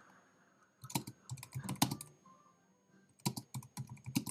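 Typing on a computer keyboard: a run of keystrokes about a second in, a pause of about a second, then another run near the end.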